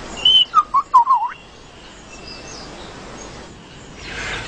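A lyrebird singing a short run of loud whistled notes in the first second and a half. One high note is followed by several lower notes that bend up and down.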